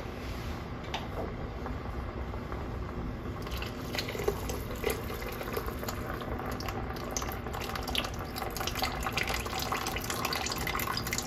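Chicken broth poured from a glass canning jar in a thin stream into a pot of soup, trickling and splashing steadily into the liquid; the pouring begins about three and a half seconds in.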